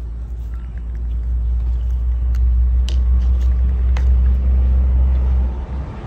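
A loud, steady low rumble that builds over the first few seconds and drops away sharply just before the end, with a few faint clicks over it.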